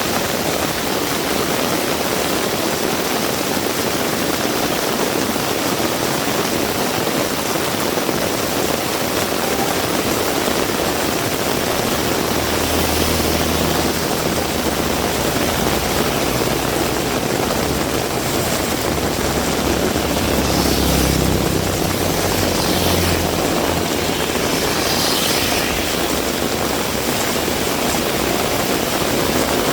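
Heavy rain falling steadily. Through the middle a motor vehicle's engine rumbles as it passes, with a few swishes.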